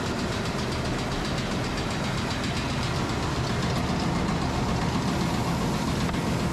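Farm machinery running steadily, with a fast, even clatter over a constant hum.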